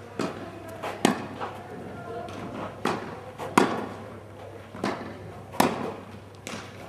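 Tennis rally: a series of sharp knocks of racket strings on ball and ball on court, the loudest strikes coming about every two seconds with quieter knocks in between.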